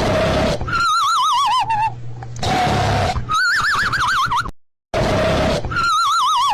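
Cartoon snoring sound effect: a rattling snore on the in-breath, then a warbling whistle on the out-breath, repeating in a loop. There are three snore-and-whistle rounds, with a brief silence about four and a half seconds in where the loop starts over.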